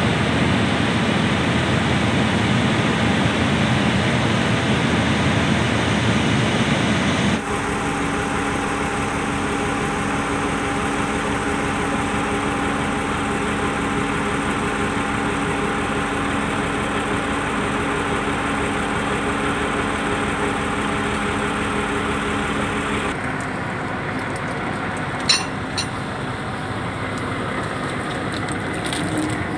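Diesel engine of heavy logging machinery (excavator or bulldozer) running steadily. The sound changes abruptly twice, about a quarter of the way in and again near three quarters, with a sharp click shortly after the second change.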